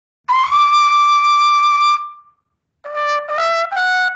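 Baroque trumpet with note holes, played: one long held high note (the C that the note holes bring better into tune), a short break, then a scale of short notes stepping steadily upward from about an octave lower. The scale climbs a whole octave.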